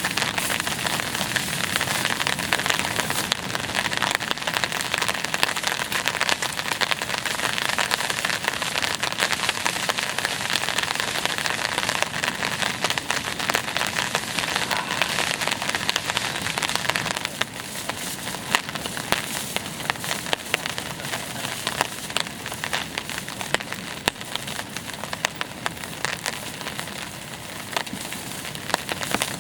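Heavy rain falling, a dense hiss dotted with many small drop impacts, easing slightly about two-thirds of the way through.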